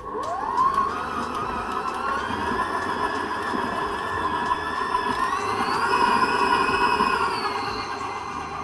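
Electric stand mixer motor spinning up with a rising whine, then running steadily as its flat beater works a thick cookie dough. Its pitch climbs a little about five seconds in and drops back near the end.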